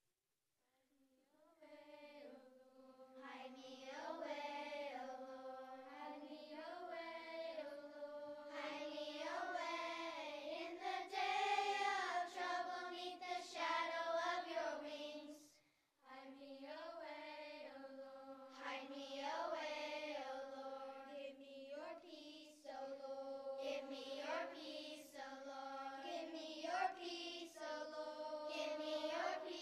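Children's choir of third to sixth graders singing, starting about a second in, with a brief break about halfway through.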